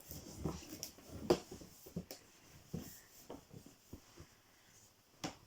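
Irregular rustling and scattered clicks of a cardboard advent calendar box being handled and opened, with sharper knocks about a second in and near the end.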